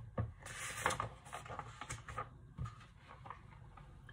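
Pages of a large picture book being turned and the book handled: a faint paper rustle in the first second, then a few light taps and knocks, settling to room quiet in the second half.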